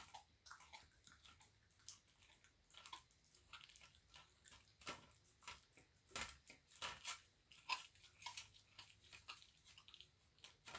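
Bobcat chewing raw chicken legs, crunching through the bones in a quick, irregular run of crunches and chews.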